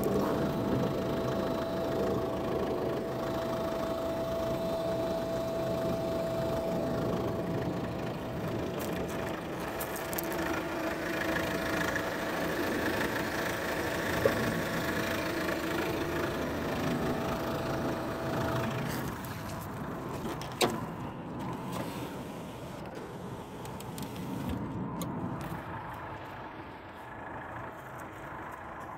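Chevrolet Winstorm SUV's engine idling, heard from underneath the car, a steady hum with a thin steady whine through the first two-thirds. Two sharp clicks stand out, one near the middle and one a little later, and the sound grows quieter toward the end.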